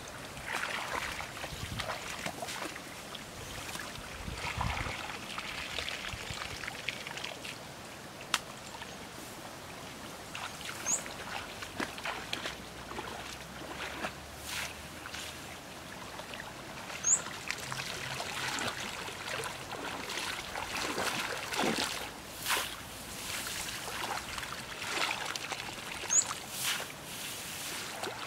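Shallow muddy paddy water sloshing and splashing in irregular bursts as a person wades and scoops with a woven bamboo basket, with rice plants swishing against the legs. Three short high chirps come through well apart.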